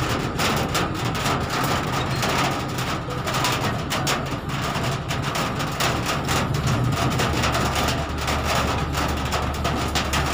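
Vehicle cabin noise while driving through floodwater in rain: the engine's low hum under a steady wash of water and rain noise, with irregular spatters of raindrops on the windshield. A deeper hum joins about six seconds in.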